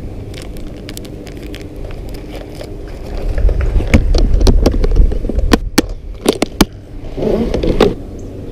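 Wind buffeting the microphone, loudest for a couple of seconds in the middle, then several sharp clicks and a short rustle near the end from small plastic fishing tackle being handled.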